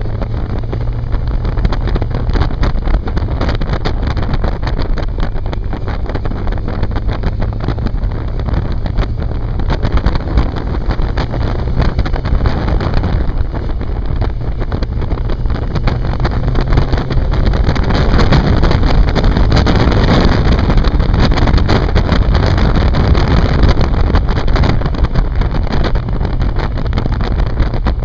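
Onboard sound of a 750 cc inline-four sport motorcycle riding, its engine note mixed with wind noise on the microphone. It gets louder between about 17 and 25 seconds in, then eases off.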